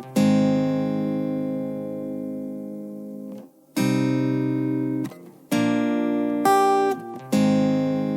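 Background music without singing: guitar chords struck and left to ring out, a new chord every one to three seconds.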